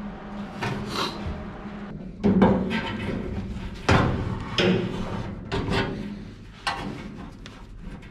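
Several knocks and clunks with rubbing and scraping between them, from hands-on work on a car's sheet-steel floorpan as it is pushed into place against the transmission tunnel. The loudest knock comes about four seconds in, over a steady low hum.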